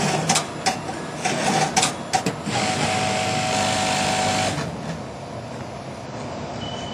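1335M industrial sewing machine stitching the seam of a thick quilted panel: irregular clicks and knocks at first, then about two seconds of steady running at speed, after which it drops to a quieter hum.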